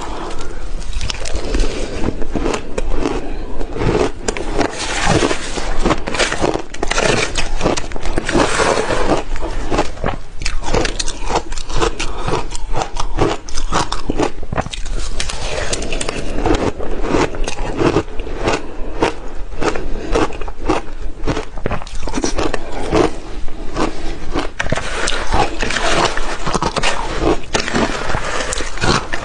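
Crushed ice crunching continuously with many sharp crackles, both as it is chewed and as a metal spoon scrapes and stirs through it in a glass bowl.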